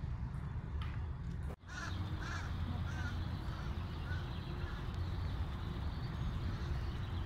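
Steady low rumble of wind on the microphone during a walk, broken by a brief dropout about a second and a half in. After it come a few short bird calls, spaced about half a second apart.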